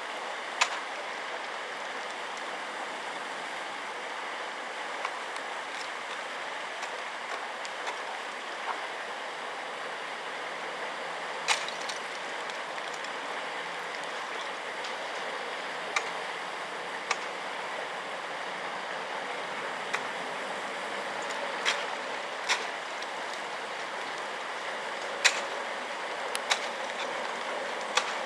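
Steady rushing of running water, broken by about nine sharp, separate knocks scattered irregularly through it.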